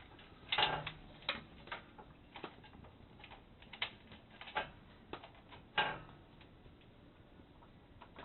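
Irregular clicks and light knocks of hands working the photocell's wire and plastic connector while plugging in a 3-pin terminal, about seven sharper clicks spread over several seconds.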